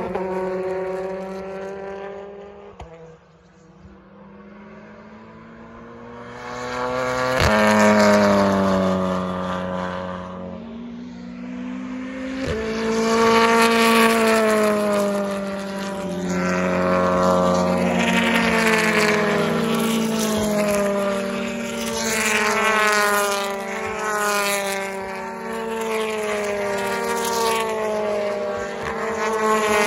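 BTCC touring cars' 2.0-litre turbocharged four-cylinder engines passing at speed one after another, each rising and falling in pitch as it goes by. Between passes the sound drops to a lull about 3 s in. There are a couple of sharp exhaust cracks, near 7 s and 12 s.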